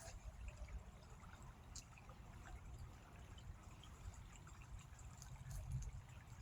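Faint trickle of creek water, over a steady low rumble.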